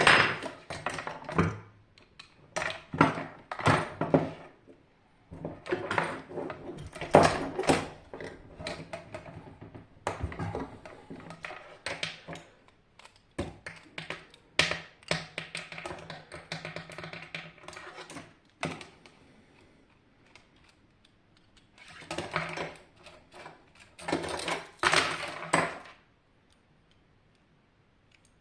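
Metal parts and tools clicking, knocking and clattering while a Hajdu electric water heater is taken apart, in irregular bursts with short pauses; it goes quiet a couple of seconds before the end.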